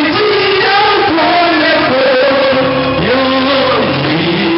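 A man singing karaoke into a handheld microphone over backing music, holding long notes and sliding between them.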